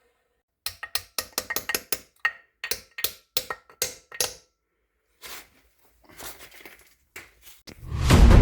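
A quick run of about fifteen sharp clinks and knocks, then a few fainter ones. Loud music with heavy drum hits starts near the end.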